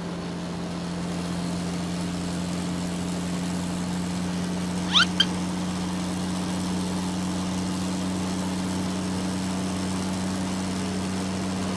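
Steady engine hum of a cartoon truck sound effect, with two short rising squeaks about five seconds in.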